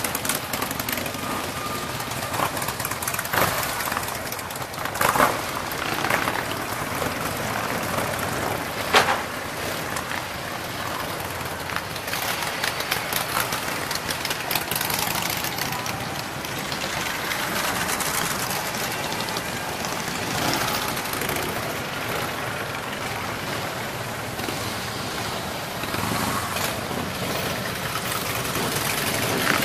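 Harley-Davidson motorcycles' V-twin engines running as the bikes ride past one after another in a steady stream, with a few short sharp bangs standing out in the first third.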